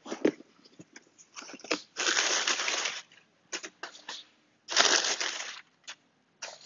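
Crumpled brown kraft packing paper being pulled out of a cardboard box, rustling and crinkling. There are two longer rustles, about two seconds in and about five seconds in, with short crackles between them.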